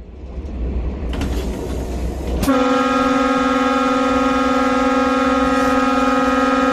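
Train rumbling along the track, the low running noise building over the first couple of seconds, then the train's horn sounds one long steady blast from about two and a half seconds in, a warning as it nears a level crossing with a car approaching.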